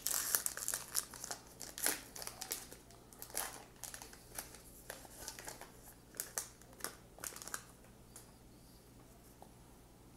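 Crimped wrapper of a 2016 Allen & Ginter baseball card pack crinkling and tearing as it is opened by hand: a quick run of crackles that dies away after about seven seconds.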